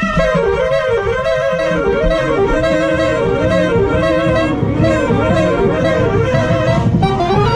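Soprano saxophone playing close up, repeating a short up-and-down figure over and over, with the rest of the marching band and drums underneath. Near the end the line slides upward.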